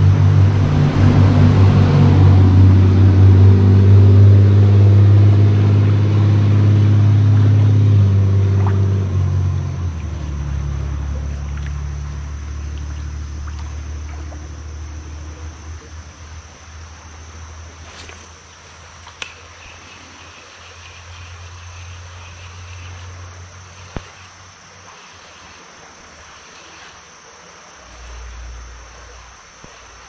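A motor vehicle's engine running low and loud, then fading away over the next fifteen seconds or so as it moves off. Two or three sharp clicks come near the end.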